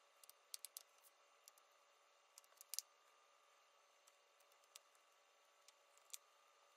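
Near silence broken by faint, sharp clicks of small laptop parts being handled and pressed into place, a few in quick pairs, the loudest nearly three seconds in.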